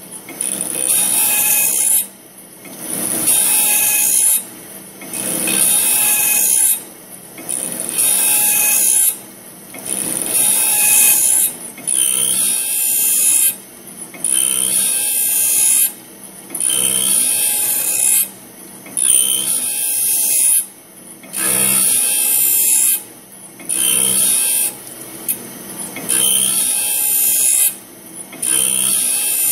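Automatic bandsaw blade sharpening machine grinding the blade's teeth under coolant: a high grinding whine in strokes of about two seconds, each broken by a short lull as the blade is advanced to the next tooth, repeating about every 2.3 seconds.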